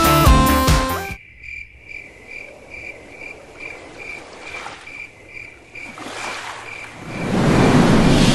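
An upbeat music track cuts off about a second in. Crickets then chirp evenly, about three chirps a second, over a faint hiss, and near the end the sound of an ocean wave swells up loudly.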